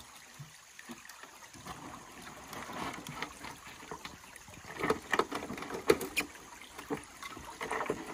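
Water splashing and sloshing as a stream sluice box is rinsed out over a plastic bucket, washing its concentrates down into it. A few sharp knocks of the sluice on the bucket come about five to six seconds in and again near the end.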